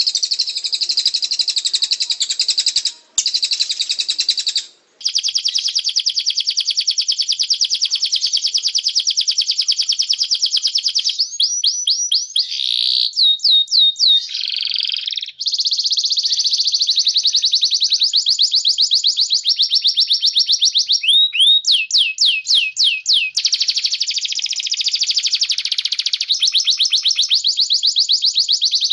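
Canary and cililin song played for a bird-song duel: long, very fast rolling trills and rattles in an almost unbroken stream, with runs of quick falling whistles a little before halfway and again about three quarters of the way in.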